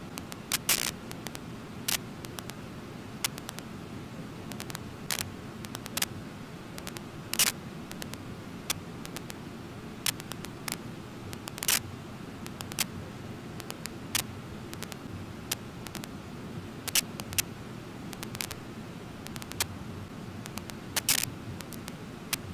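Steady low rush of the Brooks Falls waterfall, with sharp, irregular clicks about once a second standing out over it as the loudest sounds.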